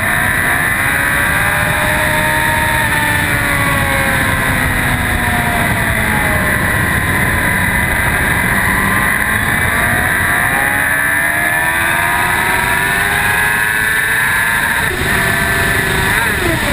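2004 Yamaha R1's inline-four engine at speed on a race track, heard from a camera mounted on the bike over heavy wind noise. Its pitch rises and falls repeatedly as the rider accelerates and slows through the corners and onto the straight.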